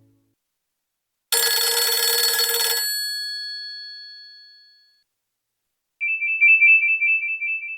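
Nokia 2730 classic ringtones played in turn: a bright chime-like tone about a second in that rings out over a few seconds, then, after a short silence, a rapid high-pitched trilling two-note electronic ring.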